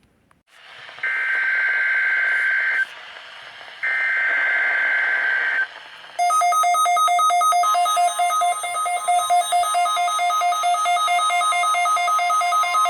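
NOAA Weather Radio warning-alarm test: static, then two buzzy SAME digital header bursts, then weather radio receivers' fast electronic alert beeping starting about six seconds in, joined by the steady 1050 Hz warning alarm tone that the test activates.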